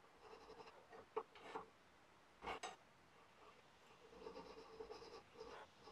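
Faint, irregular strokes of a thin hand file rasping back and forth in a narrow slot in a brass bolster, which is being filed out to fit a knife's tang. There are a couple of sharper scrapes about one and two and a half seconds in, and a quicker run of strokes near the end.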